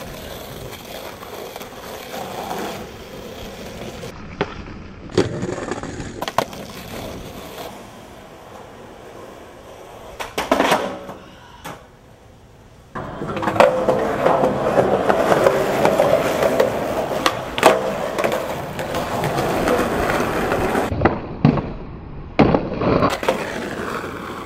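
Skateboard wheels rolling over rough pavement, with a series of sharp clacks as the board's tail and wheels strike the ground on tricks. The rolling gets louder a little past halfway.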